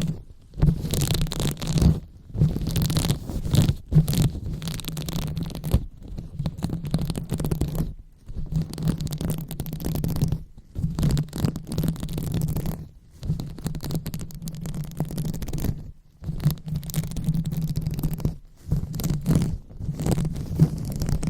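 Hands rubbing and scratching directly on a microphone for an ASMR 'brain massage': a low, rumbly scratching noise in strokes a second or two long, broken by short pauses.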